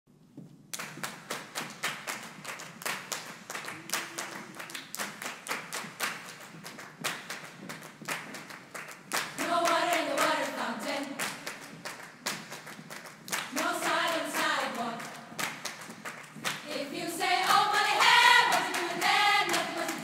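Women's choir clapping a steady rhythm with their hands. About nine seconds in, sung vocal phrases join the clapping, come again a few seconds later, and grow louder and fuller near the end.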